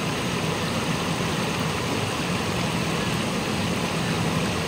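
Steady rush of running water in a rocky stream, an even noise with no breaks.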